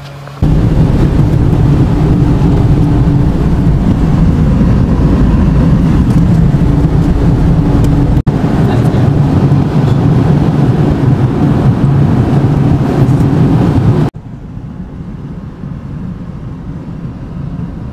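Steady engine hum and road rumble heard from inside a moving car. There is a brief break about eight seconds in, and near the end the rumble drops to a quieter, duller level.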